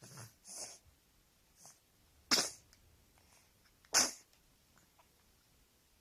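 Three-month-old baby sneezing twice, two short sharp sneezes about a second and a half apart, after a few softer breathy sounds.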